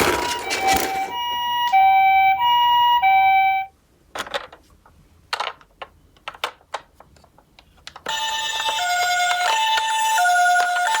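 Japanese ambulance two-tone siren, alternating high and low 'pee-po' notes. It cuts off about three and a half seconds in, leaving a few sharp clicks in near quiet, and a two-tone siren starts up again about eight seconds in.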